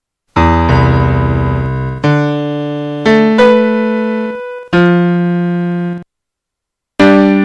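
Background piano music: slow chords struck one after another, each ringing and dying away, with a short pause at the start and a pause of about a second near the end.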